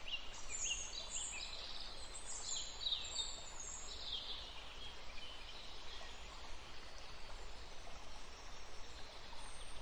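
Faint natural ambience with birds calling: many short, high, falling chirps through the first half, then only a few fainter calls over a steady background hiss.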